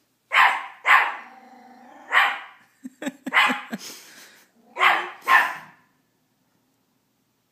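Miniature pinscher puppy barking at its own reflection: about six sharp, high barks in the first six seconds, with a low growl after the second bark.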